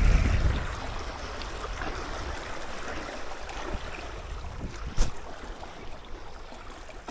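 Seawater lapping with light wind. Wind buffeting the microphone fades out in the first second, and there is a single sharp knock about five seconds in.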